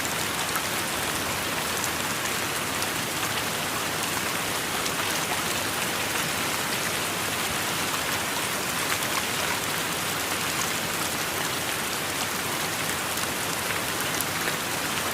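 Rainstorm downpour falling steadily: a dense, even hiss with scattered ticks of individual drops.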